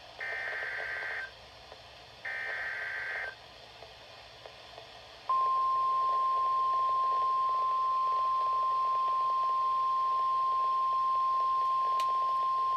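NOAA Weather Radio emergency alert: the last two bursts of the SAME digital header, each a raspy data screech about a second long. After a short gap comes the steady single-pitch 1050 Hz warning alarm tone, which begins about five seconds in and is the loudest sound.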